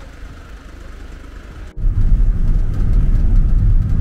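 Low, steady motor-vehicle rumble of engine and road noise, which breaks off for an instant a little under two seconds in and comes back much louder and deeper.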